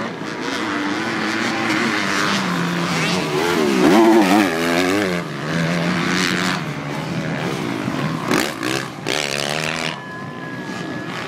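Several motocross dirt bikes racing round the track, their engines revving up and down as the riders shift and hit the jumps, loudest about four seconds in.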